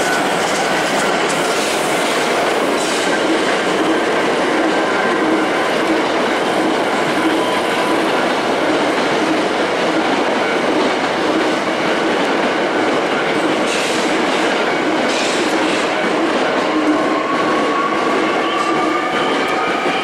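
Electric commuter train running past at a level crossing: a loud, steady rumble of wheels on rail with clickety-clack over the joints. A repeating pulse runs underneath, and near the end a rising whine comes in as traction motors speed up.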